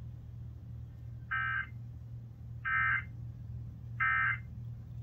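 Three short buzzy data bursts of an Emergency Alert System end-of-message (SAME "NNNN") signal, evenly spaced about a second and a half apart, marking the end of the severe thunderstorm warning broadcast.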